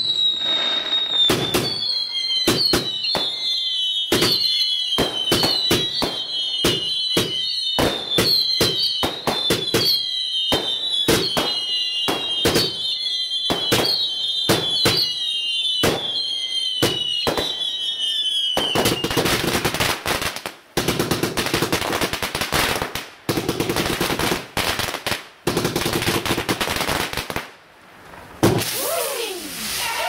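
A firework barrage firing a rapid string of shots, each with a high whistle that slides slightly down in pitch, for about two-thirds of the time; it then changes to dense crackling that breaks off in short gaps near the end.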